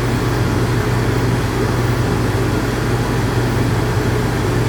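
Electric dog grooming clippers running steadily, a constant low hum as hair is trimmed from the dog's face.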